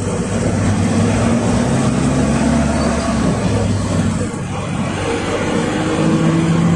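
PAZ 32054-04 bus with a YaMZ-53423 four-cylinder turbodiesel, heard from inside the cabin while driving along. The engine note falls away briefly about four seconds in, then picks up again and rises slightly.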